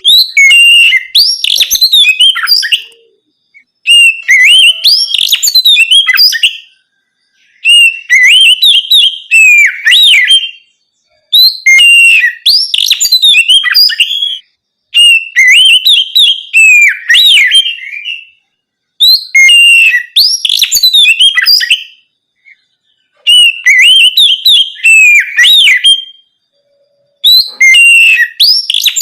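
Oriental magpie-robin (kacer) singing in the ngeplong style: loud, clear whistled phrases of rising and falling notes, each about three seconds long, repeated eight times with pauses of about a second between them.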